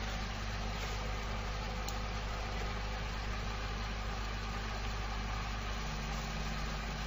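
Coal stoker's electric drive motor and reduction gearbox running, a steady low hum. A slight change in the hum's tone comes about six seconds in.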